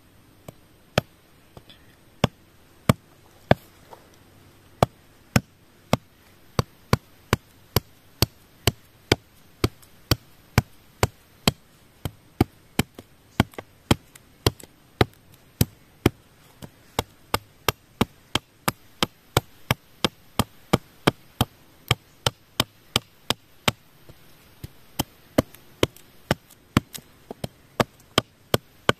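Large knife blade chopping into a green bamboo pole: a steady run of sharp strikes, about two a second.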